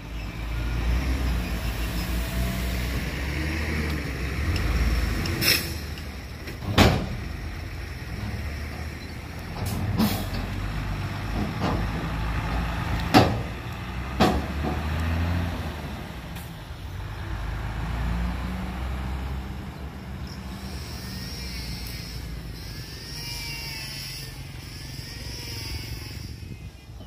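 Hyundai dump truck's diesel engine running while the raised tipper bed empties its load of soil, with several sharp knocks and bangs in the middle of the stretch. Near the end the engine sound drops lower and high squeaky chirps come in.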